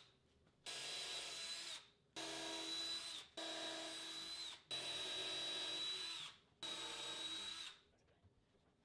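Power drill pre-drilling screw holes into a butcher block countertop: five short runs of about a second each. The motor's steady whine drops in pitch as each run stops.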